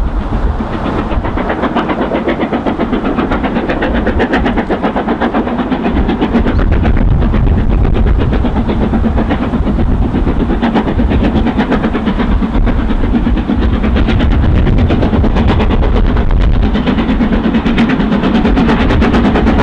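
Two LMS Stanier Black 5 4-6-0 steam locomotives double-heading an express, their exhaust beating fast and regular as the train approaches at speed, getting louder about a third of the way in. Wind buffets the microphone underneath.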